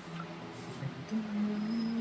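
A person's voice, with one steady hummed note held from about a second in.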